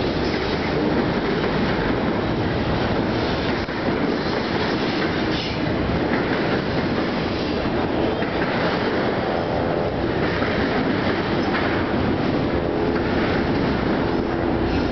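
BNSF double-stack intermodal freight cars rolling past: a steady, loud rumble and clatter of steel wheels on rail, with a faint wheel squeal in the second half.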